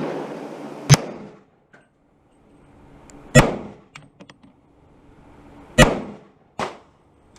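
Four rifle shots, irregularly spaced: one about a second in, one near three and a half seconds, and two close together near the end.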